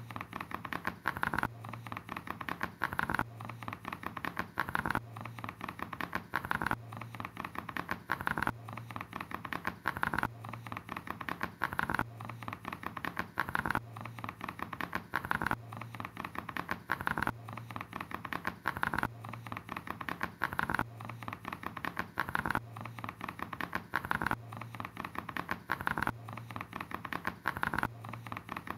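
A looped sound texture of rapid clicking and pattering, with a low tone that pulses on and off about every two seconds in an even, repeating cycle.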